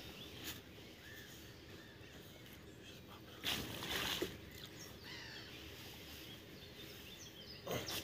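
Water poured from a plastic bucket, splashing onto a fish in a carp cradle for about a second, a little over three seconds in. A brief splash follows near the end, with birds chirping faintly throughout.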